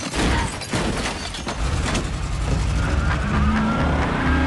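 Action-film car scene sound: sharp clattering impacts in the first second and a half, then a muscle car's engine revving up with a steadily rising pitch and a faint tyre squeal over it.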